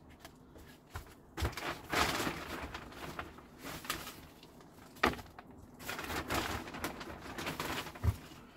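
Compost being scooped and tipped into a plastic potting tray: rustling, scraping pours with a few sharp knocks of the plastic scoop against the tray.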